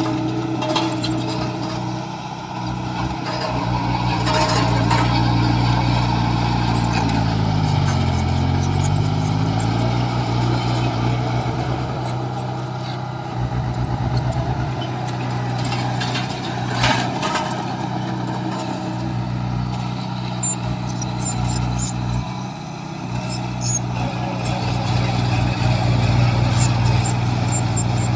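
Heavy diesel engine of a construction machine running steadily; about eight seconds in its pitch drops and climbs back as the engine is loaded and recovers. A few short knocks sound over it.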